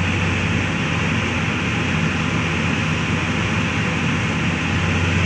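The six-cylinder Isuzu diesel engine of a Sumitomo SH350 excavator running steadily. The engine is blowing thick black smoke and is down on power, which the mechanic suspects is caused by worn fuel injectors.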